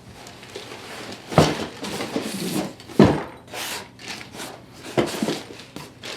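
Handling noise of objects being moved and set down: three sharp knocks, a second and a half to two seconds apart, with rustling and scraping between.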